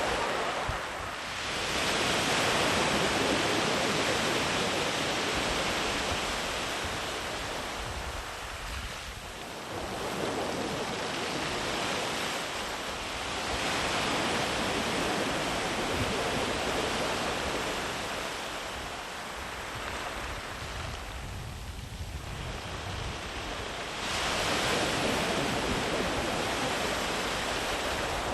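Sea waves breaking and washing up the beach, the surf swelling and easing in turn, with three main surges; the last comes in sharply a few seconds before the end.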